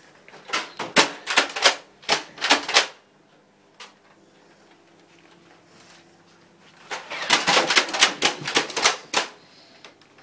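Toy Nerf foam-dart blasters being worked and fired rapidly, in two bursts of sharp plastic clacks. Each burst lasts about two seconds, at roughly three clacks a second. The second burst comes about seven seconds in.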